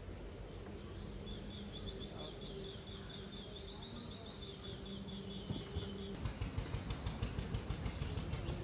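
Outdoor garden ambience: a rapid, high trill of repeated chirps runs until about six seconds in, followed by a short burst of higher chirps. Low, uneven thumps come in over the second half.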